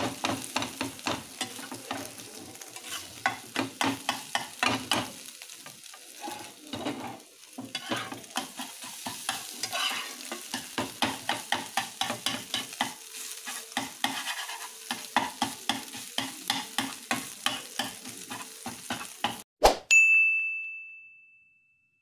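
Eggs sizzling in hot oil while a spatula stirs and scrambles them, knocking and scraping against the pan many times. Near the end the frying stops abruptly with a sharp clang, followed by a ringing tone that fades away.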